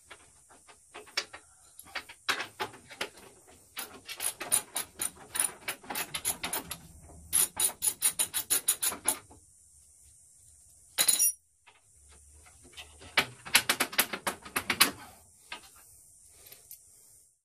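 Socket wrench ratchet clicking in quick runs of about six clicks a second as a 9/16 grille bolt is backed out, with one short, loud knock about eleven seconds in.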